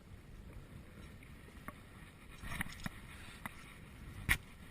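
Water sloshing and splashing at the edge as a heavy fibreglass piece is handled in it, with a few light knocks and one sharp knock near the end.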